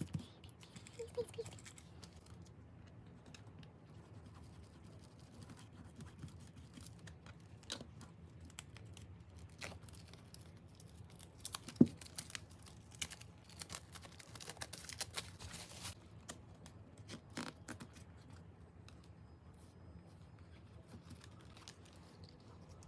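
Album packaging being handled and unwrapped: soft rustling and tearing of plastic and paper with scattered small clicks, a sharp tap about twelve seconds in, and a busier stretch of rustling soon after.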